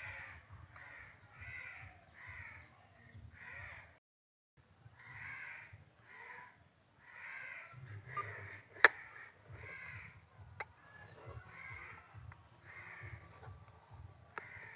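Crows cawing over and over, one short call after another, with a single sharp click about nine seconds in.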